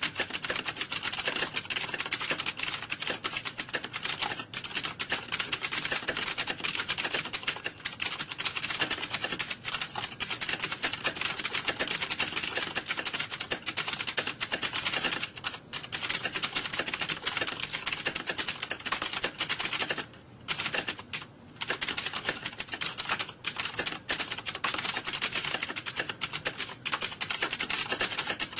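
Fast, continuous typing on computer keyboards: a dense clatter of key clicks with no pauses, apart from two brief lulls about twenty seconds in.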